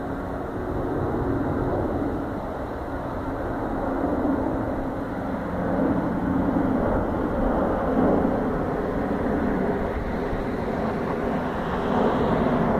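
Jet noise from an Airbus A340-300's four CFM56 engines as it climbs out after take-off: a steady low rumble that swells and grows louder near the end.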